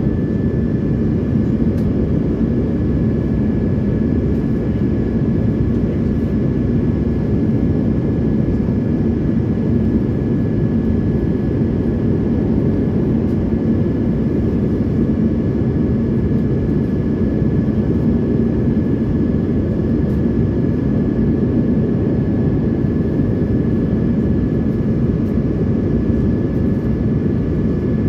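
Cabin noise of an Airbus A330-300 climbing after takeoff, heard from a window seat over the wing: the jet engines' steady deep roar under climb power, with a thin high whine held over it.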